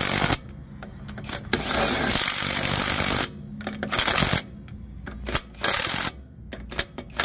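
Avhrit brushless 1/2-inch cordless impact wrench hammering lug nuts back onto a trailer wheel, in a string of on-off bursts. The longest burst lasts nearly two seconds, followed by several short blips as each nut snugs up.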